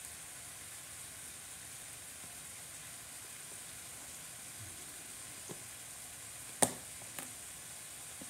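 Scissors cutting into the taped seam of a cardboard box: a sharp snip about six and a half seconds in, with a couple of fainter clicks around it, over a steady faint hiss.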